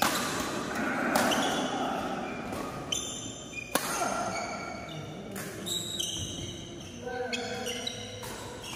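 Badminton rally: sharp smacks of rackets hitting the shuttlecock, about five of them a second or so apart, echoing in a large hall. The hits stop a little past halfway.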